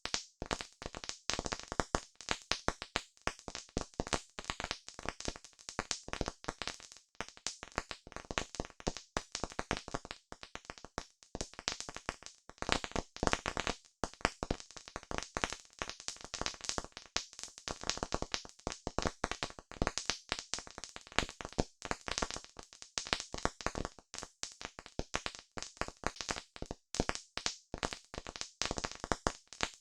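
Wood fire crackling: dense, irregular snaps and pops of burning wood, some louder than others.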